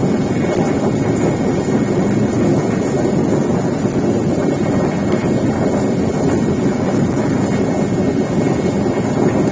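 Steady, loud engine and airflow noise of an aircraft in flight, heard from inside the cabin.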